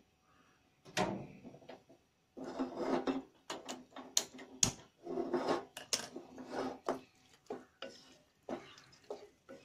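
Wooden spatula stirring a thick pork curry in a nonstick pan: a run of separate scrapes and light knocks of wood against the pan, with short pauses between strokes.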